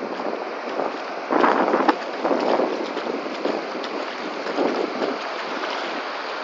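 Sea surf washing in over a shallow sandy beach: a steady hiss of breaking and receding water that swells louder a couple of times.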